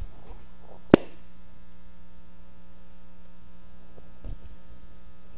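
Steady electrical hum from a handheld microphone's sound system, with one sharp click about a second in and a faint low bump near the end.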